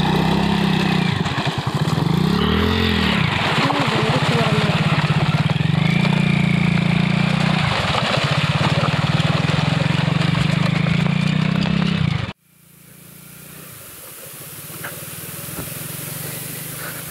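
125cc single-cylinder motorcycle engine running and being revved up and down as the bike is pushed through a shallow river, with water splashing around the rear wheel. About twelve seconds in the sound cuts off abruptly to a much quieter hiss.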